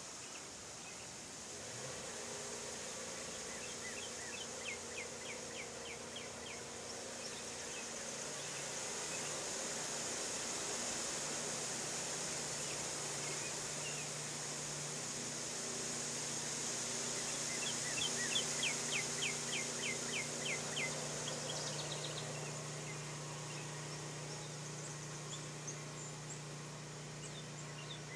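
Summer insects droning in a steady high buzz. Several times a run of quick chirps comes through, about four a second, and a faint low hum lies underneath.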